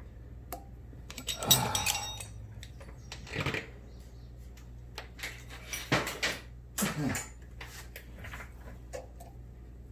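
Hand tools and steel parts clinking, knocking and scraping on a workbench while a key is worked out of a shaft, in scattered bursts with several louder clanks, over a steady low electrical hum.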